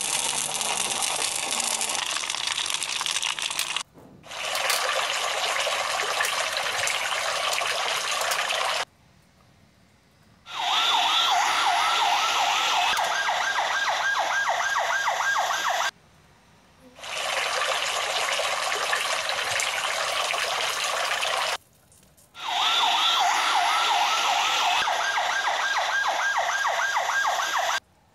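Battery-powered toy fire truck spraying water in five bursts of about four to six seconds, each a steady hiss that starts and stops abruptly. In two of the bursts its electronic siren warbles quickly along with the spray.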